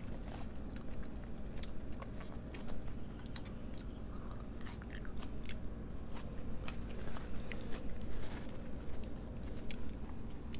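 Close-miked chewing of a mouthful of sushi burrito, with many small irregular wet mouth clicks and smacks.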